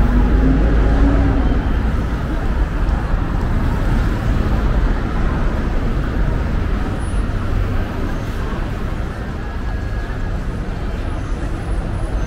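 City street traffic noise, a steady mix of passing vehicles. A vehicle engine hums, rises slightly in pitch and fades about a second in.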